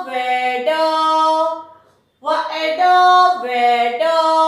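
A woman singing a short sing-song phrase twice, with held notes stepping up and down and a brief pause between the two, the way a teacher chants a new vocabulary word for pupils to repeat.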